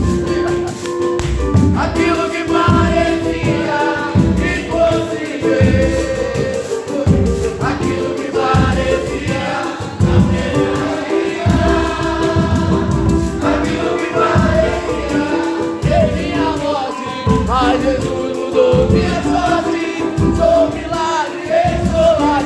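Gospel song sung by a choir with band accompaniment: voices over held instrumental notes and a steady beat.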